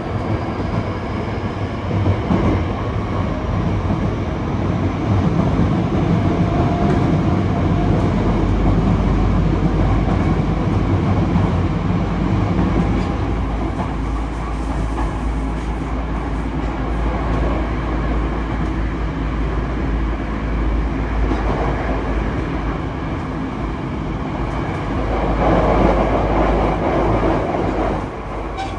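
Running noise inside a Yokohama Municipal Subway 3000S car with Mitsubishi IGBT-VVVF traction control: a steady rumble of wheels on rail. A faint rising motor whine is heard in the first second or so, and the running noise grows louder for a few seconds near the end.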